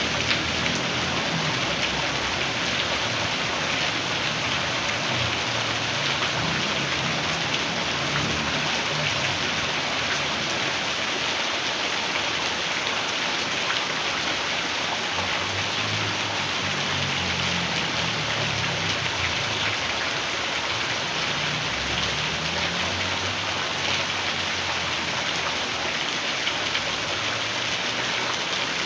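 Heavy rain pouring steadily, a dense even hiss, with a low rumble swelling and fading underneath it a few times.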